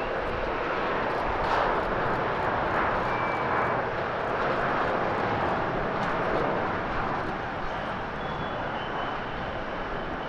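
Airbus A350 twin-engine jet airliner at takeoff power, a loud steady jet engine rush as it rolls, lifts off and climbs. In the last few seconds it eases slightly and a faint high whine shows.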